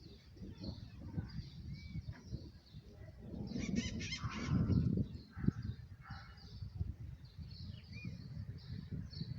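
Low rumble of distant thunder under a storm-laden sky, swelling about three and a half seconds in, with birds calling over it: a loud call of rapid repeated notes at the swell and a few short chirps.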